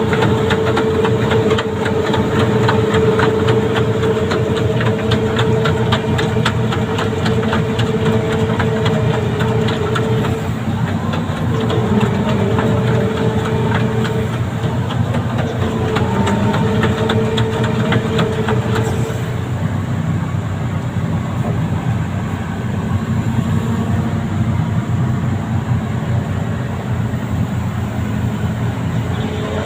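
Amphibious excavator's diesel engine running steadily with a fine mechanical clatter and a steady humming tone. The hum breaks off about a third of the way in, returns in short stretches, then fades.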